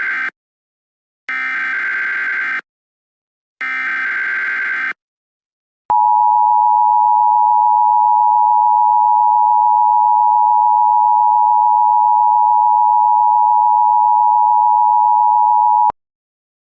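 Emergency Alert System header tones: the end of one buzzy digital data burst and two more bursts, each about a second long and a second apart. After a short gap comes the EAS two-tone attention signal, a steady tone held for about ten seconds that cuts off abruptly. Together they announce the start of a new emergency alert.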